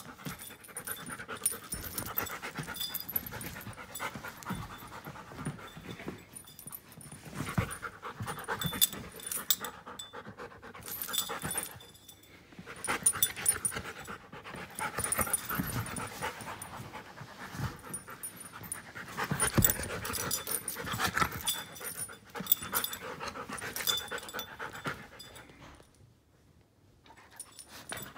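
Giant schnauzer panting while being rubbed and handled, with her fur rustling and scuffing against hands close to the microphone. The sound swells and fades every few seconds and drops away briefly near the end.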